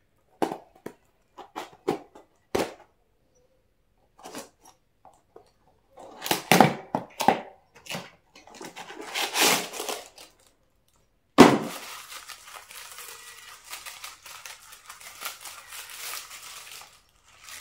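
Small cardboard box being opened with a box cutter: a few scattered clicks and scrapes as the tape is slit, then louder tearing and ripping of tape and flaps. A sharp knock about eleven seconds in is followed by steady crinkling of honeycomb kraft wrapping paper being pulled apart.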